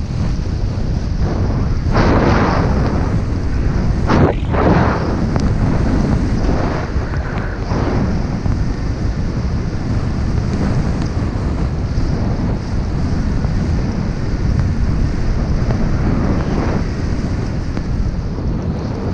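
Wind buffeting the microphone of a snowboarder riding downhill, with louder swishing swells of the snowboard's edge cutting through snow as it turns, about 2, 4 to 5 and 6 to 8 seconds in and again near the end.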